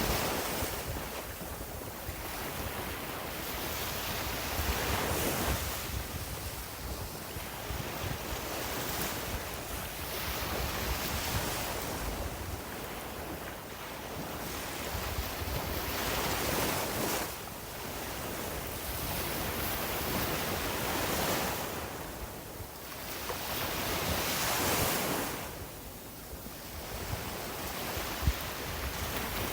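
Sea waves breaking and washing up on a beach, the surf swelling and easing every few seconds.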